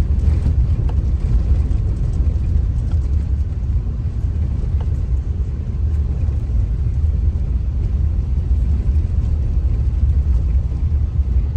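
Moving car's steady low rumble of road and engine noise.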